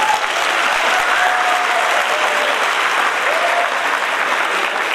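Audience applauding steadily, with a few cheering voices calling out.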